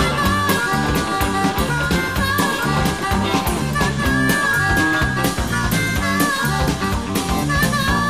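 Background music with a steady drum beat and a held melody line.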